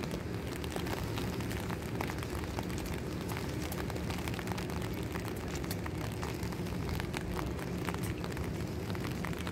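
Steady rain with a constant low rumble beneath it, and many scattered sharp ticks of raindrops striking close by.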